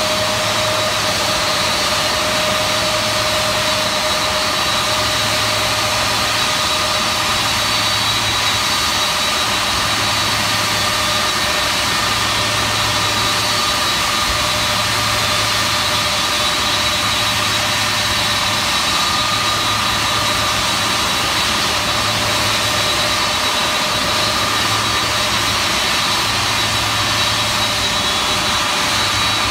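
General Electric TF39 turbofan engines of a C-5 Galaxy running steadily: a loud, even rush of jet noise with several steady high whining tones on top.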